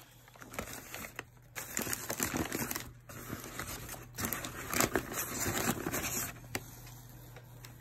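Crumpled newspaper packing rustling and crinkling as it is pulled away to unwrap a ceramic mug. It comes in irregular bursts with short pauses and dies down near the end.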